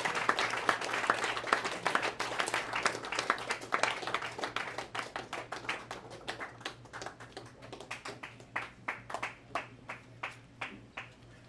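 Audience applauding: dense clapping that thins out over the second half into a few scattered claps.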